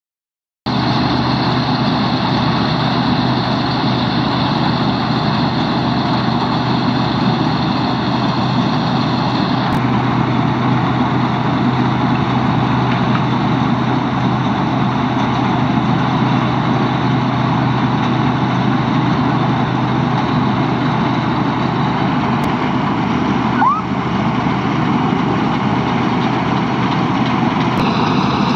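Combine harvester cutting paddy: its diesel engine and threshing machinery run in a loud, steady drone with a constant low hum. The sound starts about half a second in.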